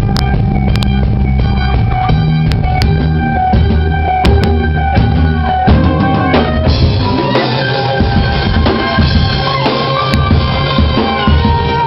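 Live prog-rock band playing loudly: a drum kit with kick and snare keeps the beat under sustained guitar notes, and the upper parts grow fuller about halfway through.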